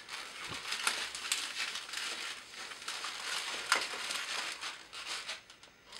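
Latex twisting balloons rubbing against each other and against the hands as they are twisted and worked into bubbles: a dense, uneven run of short rubbing sounds that stops about half a second before the end.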